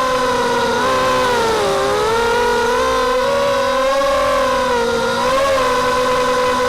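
FPV250 mini quadcopter's brushless motors (2204 2300KV spinning 5x3 props) whining steadily. About a second in, the pitch dips and the tone splits into several wavering tones as the motors change speed against each other. It settles back to one steady whine a little before the end.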